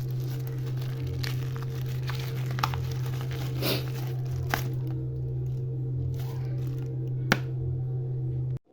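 Parcel packaging being handled and torn open: plastic crinkling and tearing with a few sharp clicks, over a steady low hum. The sound cuts off abruptly near the end.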